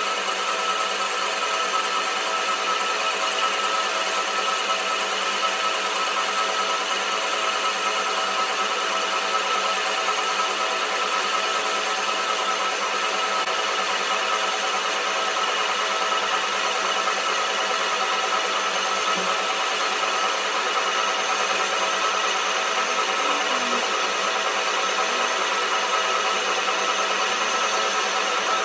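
Metalworking lathe running steadily: a constant mechanical whine made of several steady tones over a hiss, unchanged throughout.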